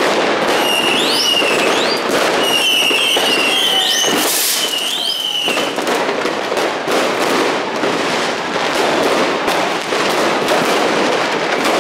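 Street fireworks crackling and banging without a break, with several high whistling fireworks shrieking from about one to five and a half seconds in, some opening with a quick rising note. A short loud hiss comes a little past four seconds in.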